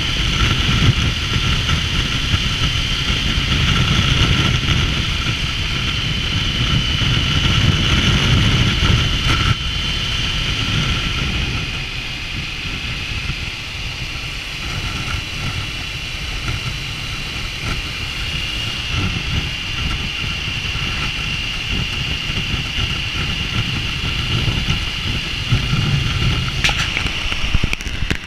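Triumph Tiger 900's three-cylinder engine running steadily on the move, mixed with wind and road rush, a little quieter from about ten seconds in.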